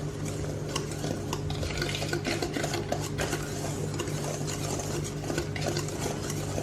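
Thick chocolate cake batter being stirred by hand in a bowl, with the utensil scraping and clicking irregularly against the bowl as the flour is worked in. A steady low hum runs underneath.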